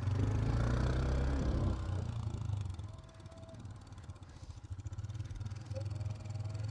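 Quad bike engine running at low speed as it drives along behind a flock of sheep. It is loudest in the first two seconds, then eases.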